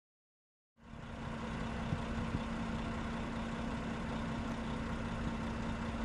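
About a second of silence, then a steady engine hum with a constant low drone fades in and holds, like a vehicle idling.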